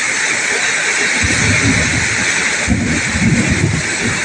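Heavy tropical downpour making a loud, steady hiss. From about a second in, irregular low rumbling surges come and go under it.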